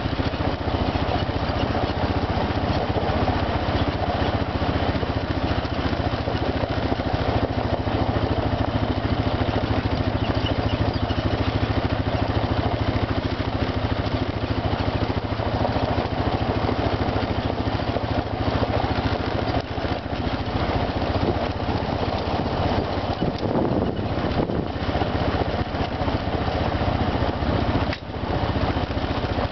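ATV engine running steadily at an even pitch, with a brief dip in loudness near the end.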